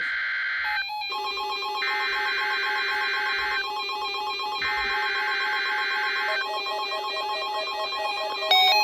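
NOAA Weather Radio Required Weekly Test: the screeching digital SAME header tones come in three long bursts with short gaps, the first already under way, while weather radio receivers set off their alert beeps and buzzing under them. Near the end a louder stepping melody of beeps starts up.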